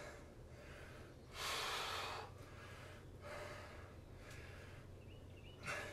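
A man breathing hard from exertion: a strong exhale about a second and a half in that lasts nearly a second, then softer breaths about three seconds in and near the end.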